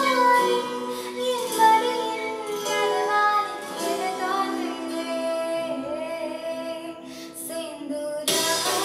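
A girl singing a melodic song into a handheld karaoke microphone, her voice carrying the tune over steady held notes. About eight seconds in the sound turns abruptly brighter and fuller.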